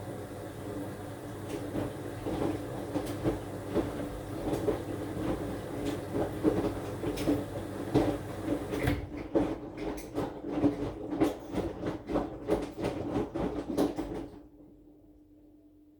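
AQUA AQW-DX12M front-loading drum washing machine turning its drum in the wash, the laundry tumbling with about one and a half dull thumps a second over a steady motor hum, heard through the machine's top panel. The drum stops shortly before the end, leaving a faint hum.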